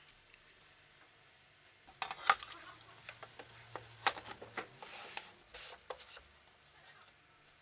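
Plywood panel being handled on a table saw's metal table: a run of light knocks, taps and scraping slides, the loudest knock about two seconds in. No saw motor is running.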